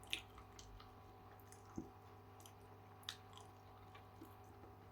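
Near silence with faint chewing: a few soft mouth clicks and smacks, about three of them, as a chicken wing is eaten.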